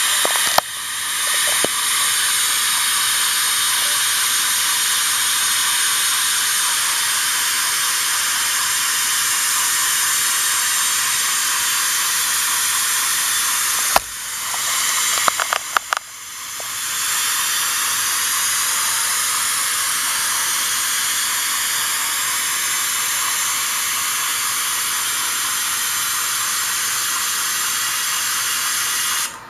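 Steady steam hiss from the sound decoder's speaker in an HO scale geared steam locomotive model. Twice, about half a second in and again about halfway through, a few clicks break in, the hiss drops away and then swells back.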